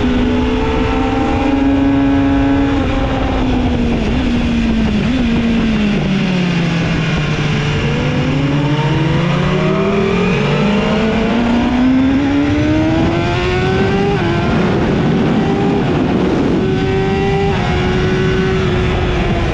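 BMW S1000RR inline-four engine heard from onboard at speed: its pitch falls and holds low for several seconds as the bike goes through a bend, then climbs steadily as it accelerates out, with a few brief steps in pitch near the end. Wind rush runs under it throughout.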